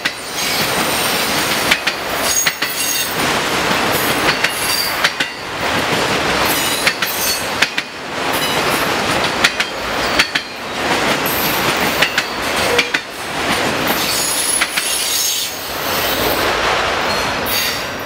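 Autorack freight cars rolling past: steady wheel-on-rail noise with sharp clicks and thin high-pitched wheel squeals. The sound swells and dips about every two and a half seconds as each car goes by. It eases near the end as the last car clears.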